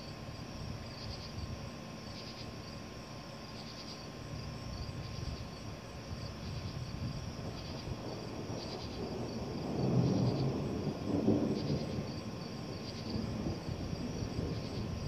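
Thunder rumbling, swelling to its loudest about ten seconds in, over steady chirping of insects.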